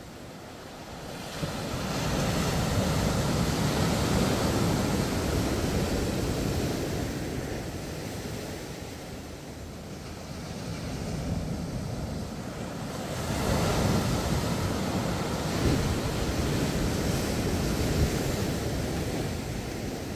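Surf breaking and washing up a sandy beach, the rush swelling and easing in two long surges.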